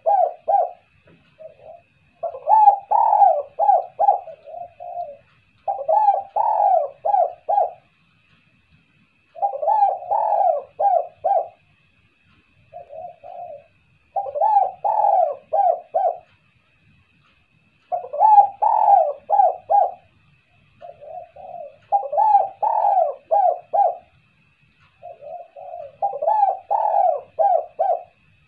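Spotted dove cooing: phrases of several quick coo notes each, repeated about every three to four seconds, with one or two shorter, fainter phrases in between.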